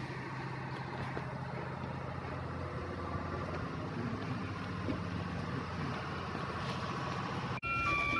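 Steady low machinery hum with background noise, as from shipyard machinery in a dry dock. It cuts off suddenly near the end, replaced by steady high tones with a second tone alternating in a regular pattern.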